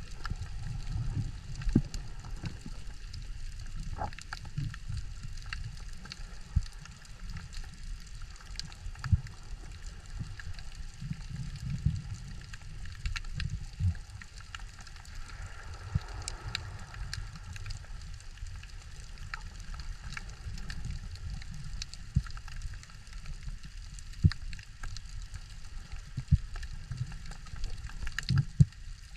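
Underwater ambience picked up by a camera on a diver's speargun or mask: a low, uneven rumble of water movement with many scattered faint clicks and crackles.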